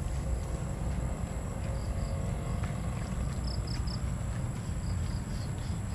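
Outdoor ambience: a steady low rumble, with short high chirps in runs of three or four from a small creature, heard a few times.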